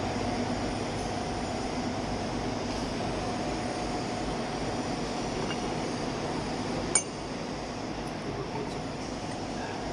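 Steady hum of machine-shop machinery, with a single sharp metallic clink about seven seconds in as a steel lathe dog is handled against the steel workpiece.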